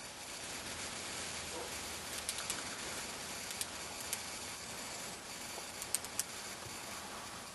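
Steady outdoor background hiss with a few faint, sharp clicks scattered through the middle; no clear sound from the dog.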